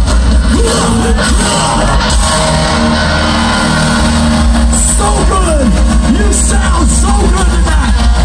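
Live rock band playing loud through a concert PA. From about five seconds in, crowd yells and whoops rise over the music.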